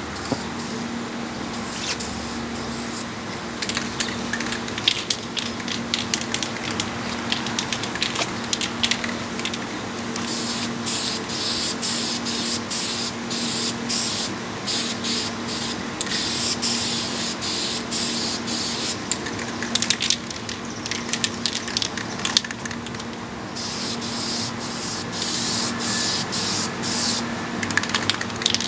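Aerosol spray-paint can hissing in repeated bursts of varying length with short pauses between them as a coat of paint goes on. The spraying is lighter for the last few seconds.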